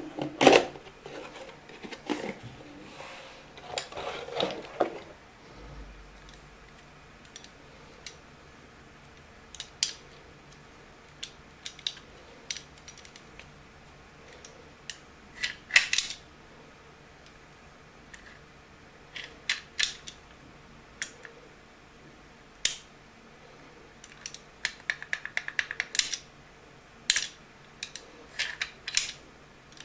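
Lince 7930R deadbolt lock being unpacked and handled: the packaging rustles for the first few seconds, then come scattered sharp clicks and clacks of the metal lock parts. A quick run of rapid clicks comes late on.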